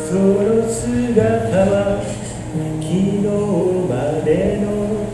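A man singing a melody while accompanying himself on an acoustic guitar.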